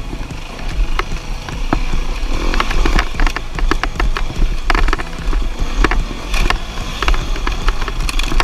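Beta four-stroke enduro dirt bike engine running under way on a rough trail, with frequent sharp knocks and clatter over it, thickest midway.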